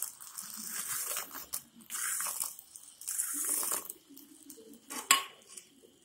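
Crisp fried bread cubes being tipped from a steel bowl and dropping into a plate of soup, in several short rustling bursts, then one sharp clink about five seconds in.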